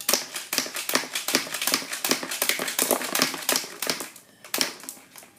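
Crossfight B-daman toy marble shooter firing rapidly: a fast run of sharp plastic clicks and clattering taps for about four seconds, thinning to a few scattered clicks near the end.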